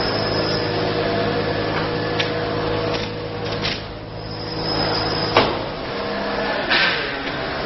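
Automatic thermal-transfer ribbon slitting machine running, with a steady motor hum and the whir of its rewinding shafts, broken by a few sharp clicks and knocks. The low hum stops after a loud click about five seconds in.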